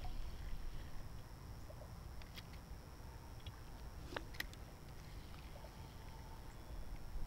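Low, fluctuating rumble of wind on the microphone on an open river, with a few light clicks and taps from the rod, reel and kayak, the sharpest pair about four seconds in.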